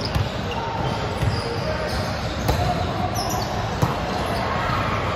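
Volleyballs being hit and bouncing on a hardwood gym floor: irregular thumps echoing through a large hall, with a few short high squeaks among them.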